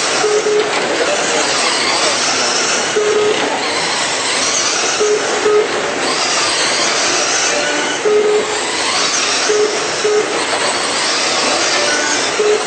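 RC race cars running on a track: a steady hiss of motors and tyres, with high whines that swell and fade as cars pass. Short beeps sound at irregular intervals.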